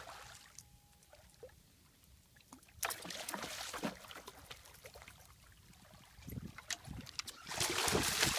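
A hooked fish thrashing and splashing at the water's surface beside a boat, in two bouts: one about three seconds in and a louder one near the end.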